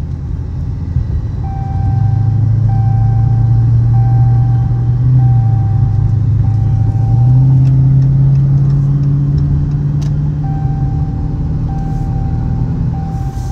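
Dodge Charger Scat Pack's 6.4-litre HEMI V8 pulling under acceleration, heard from inside the cabin. The engine note swells about two seconds in, climbs in pitch again partway through, then eases off. A short electronic chime repeats about once a second, dropping out for a few seconds in the middle.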